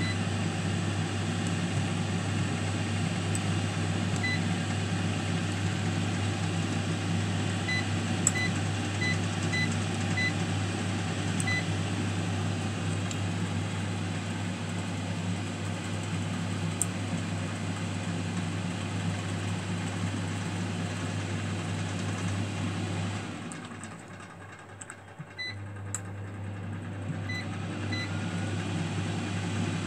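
BIYItt AF-25A air fryer running with a steady fan hum, with short high beeps from its touch panel as buttons are pressed, several in quick succession in the first half and a few more near the end. About 23 seconds in the running noise drops away for about two seconds and then starts again.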